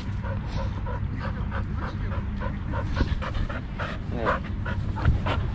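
Dog panting hard and fast, about three to four breaths a second, close to the microphone, over a low steady rumble of wind and movement.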